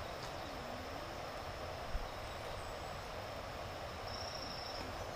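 Steady forest insect buzzing, a thin constant high note that swells briefly near the end, with one short low thump about two seconds in.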